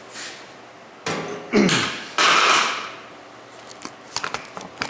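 Handling noise from the camera being moved and clicked back into its mount: bumps and scuffing on the camera's own microphone, one loud rubbing burst near the middle, then a run of quick small clicks near the end.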